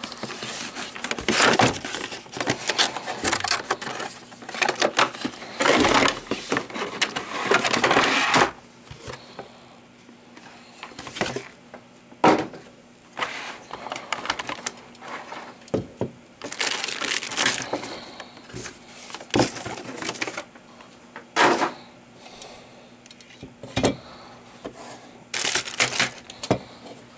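Cardboard box and plastic bag being handled and opened: dense rustling and crinkling for the first eight seconds or so, then scattered clicks and knocks of parts being set down on a wooden desk, with a few more short bursts of crinkling.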